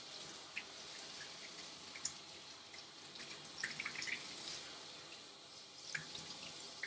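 Water from a grooming-tub hand sprayer hissing onto a dog's wet coat and dripping and splashing into the tub, with scattered small splashes that come most often about halfway through: the conditioner being rinsed out of the coat.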